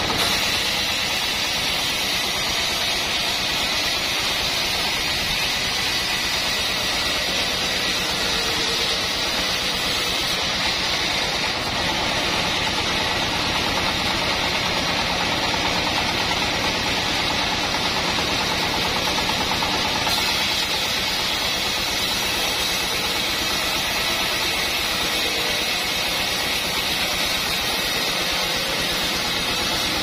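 Homemade band sawmill running steadily, its engine and band blade making a continuous, even drone with a strong high hiss.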